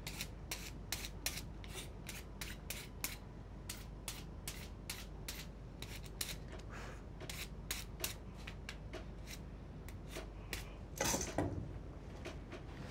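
Hair-cutting scissors snipping steadily, a few quiet cuts a second, as a haircut is given. A louder rustling scrape comes about eleven seconds in.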